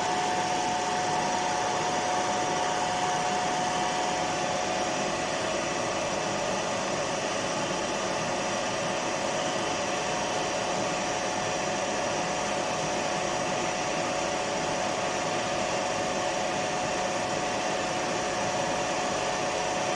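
Milling machine running steadily: an even mechanical hum with one constant whine.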